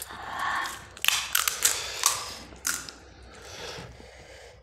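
Crisp fried panipuri (golgappa) shells cracking, a quick run of sharp crackles about a second in, as the hollow shells are poked open with the thumbs and handled.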